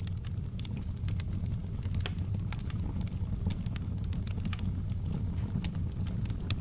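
Wood fire crackling: a steady low rumble of burning with frequent irregular sharp pops and snaps.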